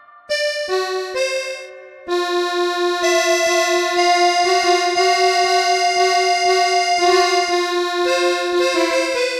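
Background music: a few notes step upward, then a long chord is held from about two seconds in, and the notes change again near the end.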